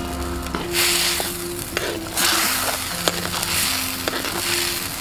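Pea and egg masala gravy sizzling in a clay pot as a metal spoon stirs it. The sizzle comes in two surges, with a few light knocks of the spoon.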